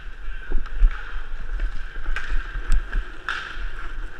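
Hockey skate wheels rolling steadily across a rink floor, heard from a helmet-mounted camera, with low wind rumble on the microphone and a few sharp clacks, one about half a second in and others around two to three seconds in.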